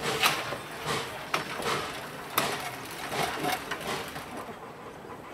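Passenger coach rolling slowly past, its wheels clicking and clanking over the rail joints in an irregular series of knocks that die away near the end.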